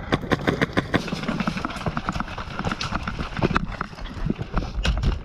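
A rapid, irregular clatter of sharp clicks and knocks, several a second, with a heavier low thump near the end.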